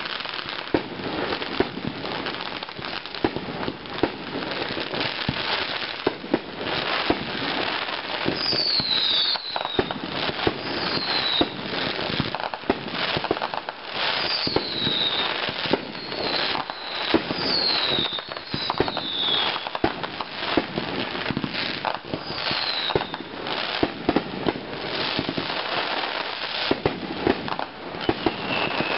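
Fireworks display: dense, continuous crackling and popping of many aerial shells going off in quick succession. Short falling whistles come in several times from about eight seconds in.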